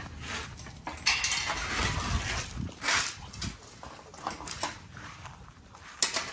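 American Bully dogs moving about a wire kennel run, with scattered knocks and rustles and a sharp metallic clatter about a second in, typical of the kennel gate being handled.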